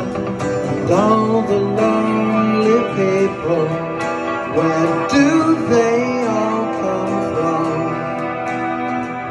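Acoustic guitar and electric guitar playing together live, an instrumental passage in which one guitar's melody line bends and slides between notes.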